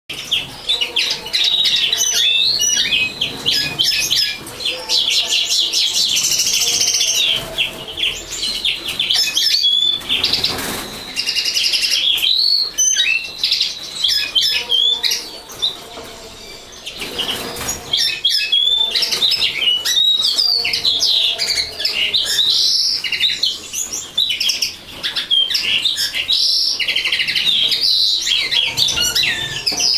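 Common linnet singing: a long, fast run of twittering notes, broken by a short pause a little past halfway.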